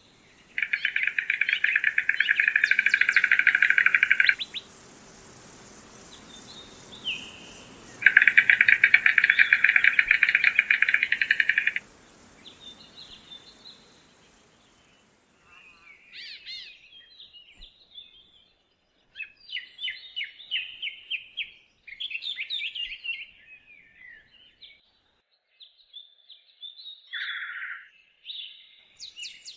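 Stork bill-clattering: two rattling bouts of rapid, even clacks, each lasting about three and a half seconds, the first starting about half a second in and the second about eight seconds in. From about halfway through, short bird calls come in irregular chirping bursts.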